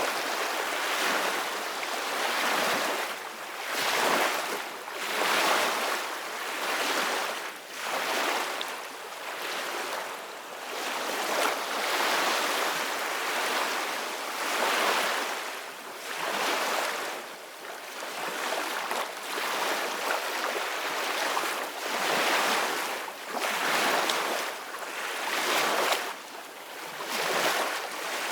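Sea waves splashing and washing. A hissing wash swells and falls back in surges every second or two, with no deep rumble beneath it.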